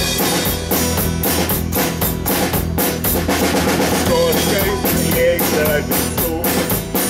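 Small live band playing an instrumental break: a drum kit keeps a steady rock beat under a strummed acoustic guitar, with a wavering melody line over it about midway through.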